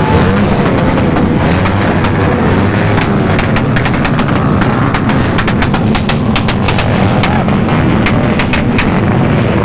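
Motorcycles with loud exhausts revving under a dense, steady rumble. From about three seconds in come rapid, irregular sharp pops, the backfire crackle of a bombahan rev session.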